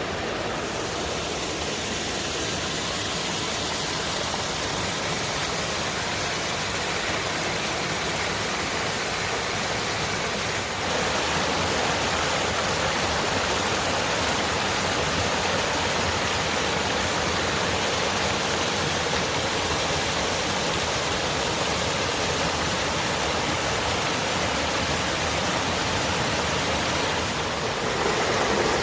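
Waterfall: a steady rush of falling water, its tone shifting slightly about eleven seconds in and again near the end.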